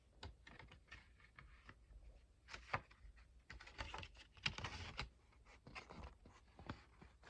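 Faint handling sounds of a plastic DVD case and its paper inserts: scattered small clicks, with two brief louder rustles a little before the middle and about two thirds through.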